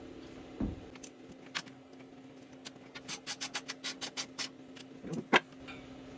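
Small clicks and knocks of wires and connectors being handled at an inverter's terminal block. Around the middle comes a quick, even run of about six clicks a second, and a sharper knock follows near the end. A faint steady hum runs underneath.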